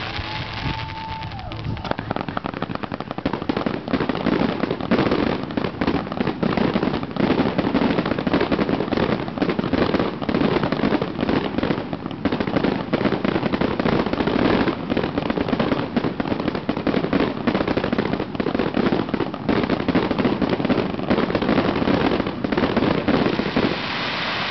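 Multi-shot fireworks cake firing a rapid barrage: a short whistle at the start, then from about two seconds in a dense run of launch thumps and crackling breaks for about twenty seconds, easing just before the end.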